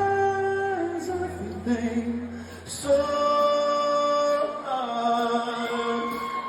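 Music: a slow, quiet passage of long held sung notes with no drums, over a low sustained bass tone for the first few seconds.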